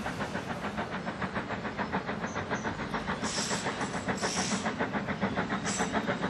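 Ivatt Class 2MT 2-6-2 tank locomotive 41241 working under steam, its exhaust beating quickly and evenly at about five beats a second, with short bursts of steam hiss about three and four seconds in and again near the end.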